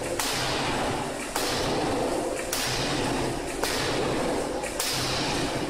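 A 3-ton open-die forging hammer, converted to an electro-hydraulic power head, striking repeatedly: five blows about 1.2 seconds apart, over a steady machine din.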